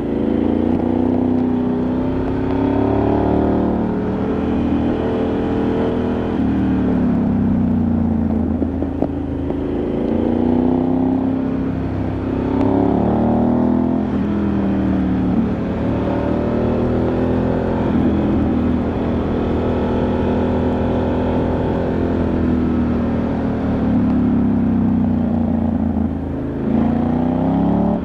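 Onboard sound of a Ducati Multistrada 1100S's air-cooled L-twin engine under way, its pitch rising under acceleration and dropping back again several times.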